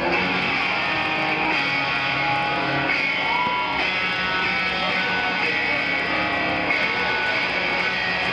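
Electric guitar solo played live, mostly held notes with one note bent up and back down about three seconds in.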